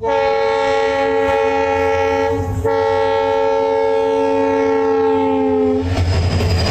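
Multi-tone air horn of an EMD WDP-4D diesel locomotive sounding two long blasts, the second sliding slightly lower in pitch. Near the end the horn stops and the low rumble of the locomotive's engine and wheels takes over as it comes close.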